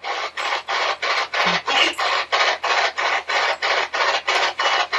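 SB-11 spirit box sweeping through radio stations: rapid bursts of radio static, about four a second, with a brief snatch of station audio caught about one and a half seconds in.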